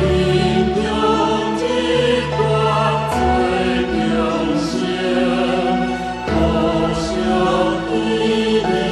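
Background music: a choir singing slow, sustained notes in a chant-like style, the pitch moving in long held steps.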